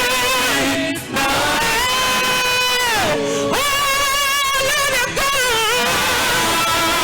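A worship song sung over instrumental backing: a voice holds long notes with vibrato, and one held note falls away about three seconds in.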